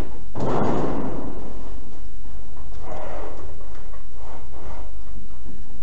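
Hand-held roller edge bender run along the edge of a steel sheet, folding a 90° flange further over toward 180°. A loud rush of rolling, scraping metal comes about half a second in, then fainter passes, one near three seconds. A steady low hum runs underneath.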